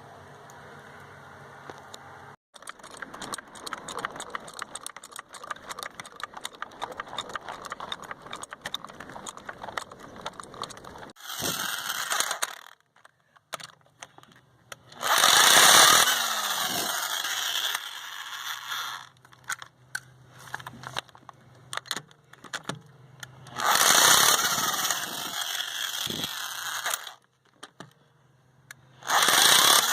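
Electric impact wrench hammering the lug nuts off a car wheel in several short, loud bursts, its motor winding down with a falling whine after each one. Between the bursts come irregular clicking and rattling from handling the tools and nuts.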